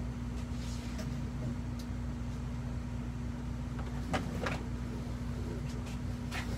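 A steady low hum runs throughout. Over it, cardboard pizza boxes are handled, giving a few short sharp knocks and rustles about four seconds in and again near the end.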